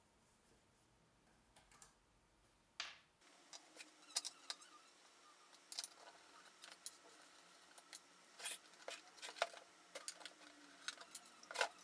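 Screwdriver working the screws out of a vacuum-tube voltmeter's metal cabinet: irregular small metallic clicks and scrapes of the tip in the screw heads, starting about three seconds in, with the loudest clicks near the end.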